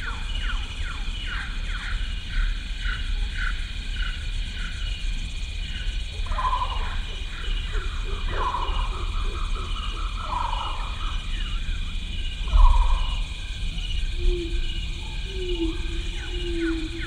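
Tropical forest ambience: steady high insect buzzing, with a bird repeating short downward-sliding chirps about twice a second and a few louder calls in the middle. A low rumble on the microphone runs under it, with one bump about two-thirds of the way in, and a low wavering tone comes in near the end.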